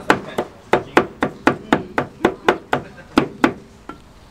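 Cleaver and knife chopping braised meat with green chili on an iron pan, quick even strokes about four a second, with a short pause near the end.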